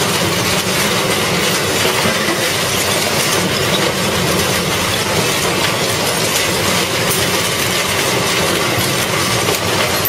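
Red Giant industrial shredder running, its rotating cutter shafts chewing and rattling through the last pieces of material in the hopper, a loud, steady grinding clatter dense with small clicks.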